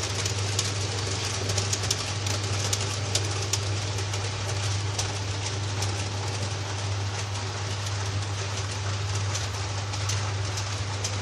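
Model freight train running along the layout track, with a steady hum and many small irregular clicks from the wheels on the rails.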